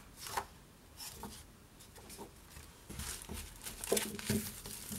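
Sheets of designer paper in a clear plastic wrapper being handled, with light rustling and crinkling. The handling is busiest between about three and four and a half seconds in.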